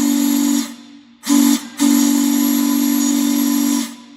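3D-printed replica of the Big Boy's Hancock long-bell three-chime steam whistle, blown on 120 psi shop air through a 1/2-inch valve: a steady low chord over a strong air hiss. One blast cuts off about half a second in, then comes a short toot and a second blast of about two seconds. Its maker was unsure whether all three notes were resonating properly.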